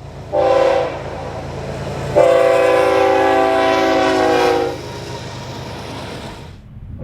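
Diesel freight locomotive's air horn sounding a short blast, then a long blast of about two and a half seconds, over the steady low rumble of the train.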